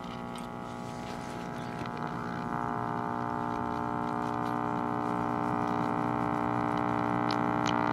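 1948 Travler five-tube AM radio's speaker giving a buzzing mains hum that slowly grows louder as the set warms up and is tuned; the hum comes from running it with no filter capacitors.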